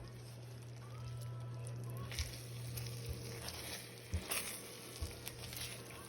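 Kitchen background noise: a steady low hum with a few sharp clicks and knocks, the loudest about two seconds and four seconds in.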